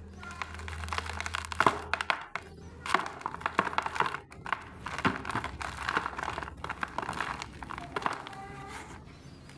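Soft dried mud crumbling and breaking apart, a dense run of small irregular crackles and crunches with a few sharper cracks.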